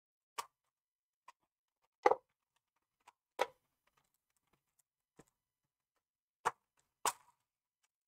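About eight sharp, irregular clicks and snaps, the loudest about two seconds in: the retaining clips of an HP ProBook 450 G6's base cover popping free as it is pried loose and lifted off.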